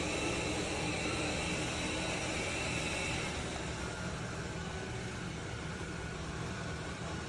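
BPMIO robot vacuum running with a steady whirring noise; a higher whine in it stops about three seconds in.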